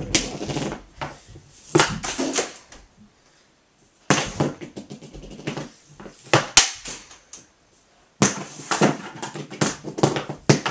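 Hockey pucks being shot in a small room: quick runs of sharp clacks as the pucks are struck and then hit and bounce about the net and floor. The clacks come in several clusters, with brief quiet gaps between them.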